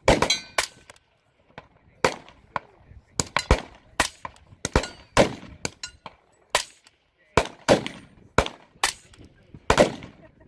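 .224 Valkyrie rifle fired through a SilencerCo Omega 300 suppressor: a quick, irregular string of suppressed shots, roughly one every half second to a second. Quiet for a rifle.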